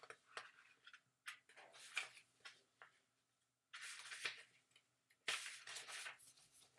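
Faint rustling of the paper pages of a large picture book being turned and handled, in about three short bursts with a few light clicks.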